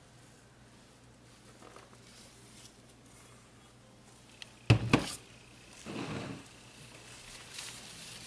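A plastic pitcher of soap batter is set down on a countertop with a sharp knock about halfway through, followed by softer handling knocks and the rustle of a cloth towel near the end.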